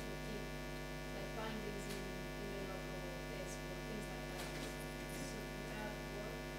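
Steady electrical mains hum with a stack of overtones, with a faint, indistinct voice underneath.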